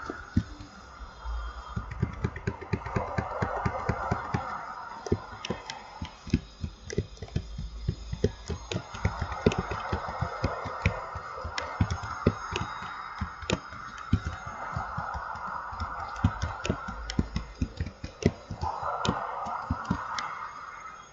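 Ocean-wave sound: a hiss that swells and fades every few seconds, with many sharp clicks and ticks scattered through it.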